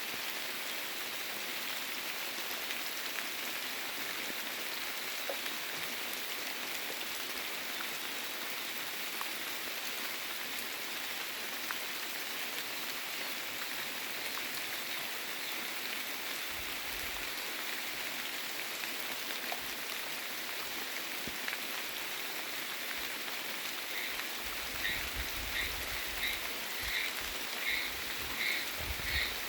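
Steady rain falling and pattering on surfaces. In the last few seconds a frog starts calling in short, regular pulses, about two a second.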